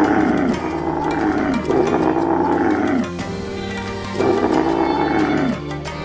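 Bactrian camel giving three long, drawn-out calls, each rising and then falling in pitch, over steady background music.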